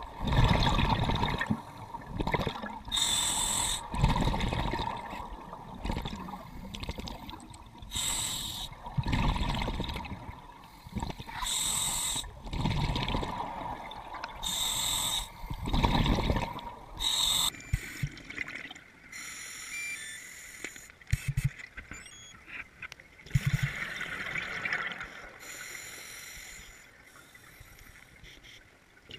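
Scuba diver breathing through a regulator underwater: bubbling exhalations alternating with short hissing inhalations, repeating every few seconds, softer in the second half.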